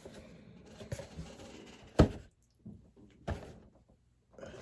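Items being handled and set down: light rustling, with a sharp knock about two seconds in and a softer knock a little over a second later.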